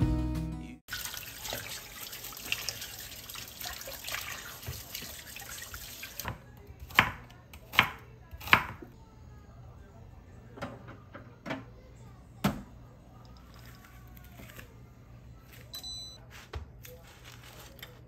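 Kitchen sounds after the music cuts off: water running into a sink for about five seconds, then a few sharp knocks and clinks of things being handled, and a short high tone near the end.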